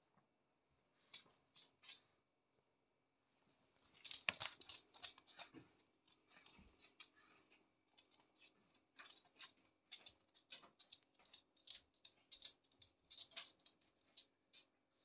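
Faint claws of a Shih Tzu and a cat ticking and scrabbling on a hard floor: a few light clicks, then from about four seconds in a rapid, irregular run of clicks and scratches as the animals move about.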